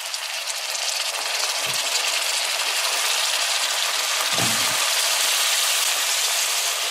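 Raw potato chunks going into hot oil with frying onions and scallions, the oil sizzling and growing louder over the first couple of seconds as the pieces go in, then holding steady. Two soft thumps as pieces land in the pot.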